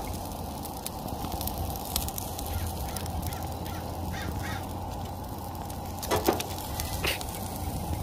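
Marinated beef short ribs sizzling steadily on a charcoal grill, with a crow cawing twice, loudly, about six and seven seconds in.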